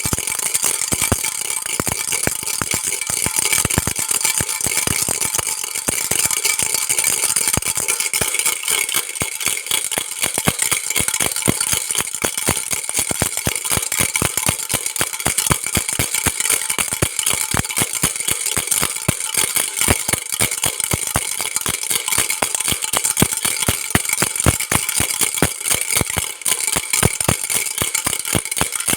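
Baby rattle shaken continuously, a dense stream of fast rattling clicks with no pause.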